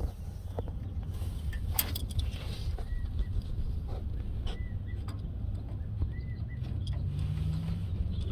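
Scattered light clicks and knocks of hand tools on the fuel pump fittings over a steady low rumble, with a few short high chirps in the middle.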